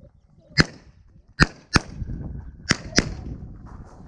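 Handgun shots fired rapidly during a practical shooting stage: a single shot about half a second in, then a quick pair, then another quick pair, each a sharp crack.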